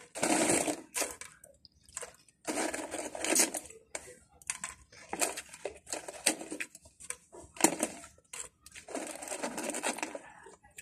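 Foil-lined plastic snack bag crinkling in irregular bursts as a hand rummages inside it for the snack.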